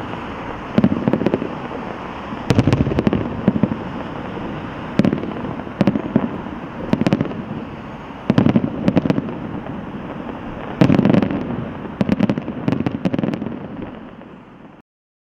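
Aerial fireworks going off: a string of booming bursts about a second apart over continuous crackling, fading away near the end and cutting off suddenly.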